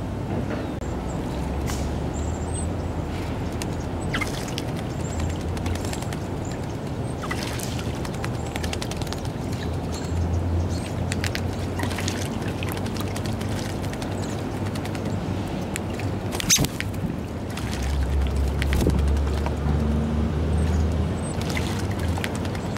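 American robins bathing in shallow water, splashing and fluttering their wings in short spells several times, the sharpest splash about two-thirds of the way through, over a steady low rumble.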